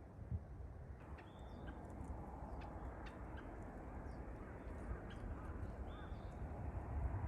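Birds calling outdoors, a few short scattered calls over a steady low rumble of background noise.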